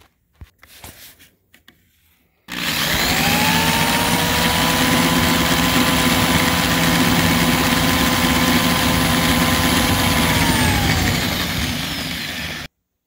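Electric drill drilling out the existing holes in a mower spindle pulley to a larger size, ready for tapping. After a few small handling clicks it starts suddenly about two and a half seconds in and rises in pitch, runs steadily at speed, then slows and drops in pitch before cutting off suddenly near the end.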